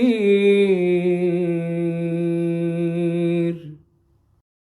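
A man's voice chanting Quran recitation in tartil style, holding one long, steady melodic note on the final word of a verse, then stopping suddenly about three and a half seconds in.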